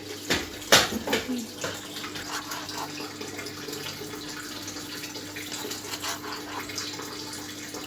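Water running from a kitchen tap, with two sharp knocks in the first second and light clatter of things being handled under the stream.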